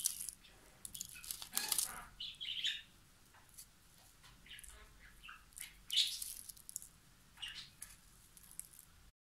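Crumbly butter cookies being broken apart and crumbled between the fingers: irregular soft, dry crackles and crumbling rustles, the sharpest about six seconds in.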